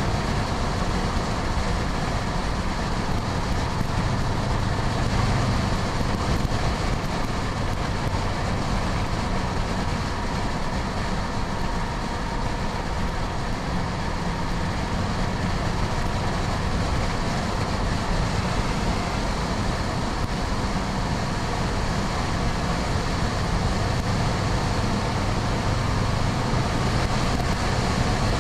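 Car cruising at highway speed: a steady engine drone with constant wind and tyre noise.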